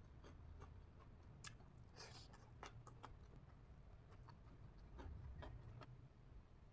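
Faint sounds of a person eating green papaya salad: scattered small clicks and crunches of chewing over a low room hum.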